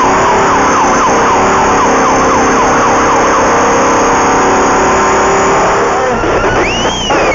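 Race vehicle's engine running hard, heard from inside the cockpit, under a rapid, repeating falling siren yelp of the kind desert racers sound to warn a slower vehicle ahead. The yelp stops a little past three seconds in, and near the end a single tone rises and falls.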